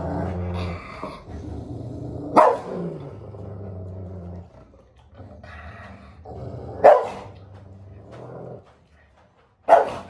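Rottweiler growling in long, low, continuous stretches, broken by three sharp barks a few seconds apart, the last near the end. It is a dog-aggressive reaction to another dog at close range.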